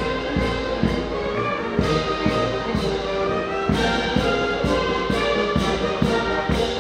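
A high-school wind band playing live, with brass holding sustained notes over a steady drum beat.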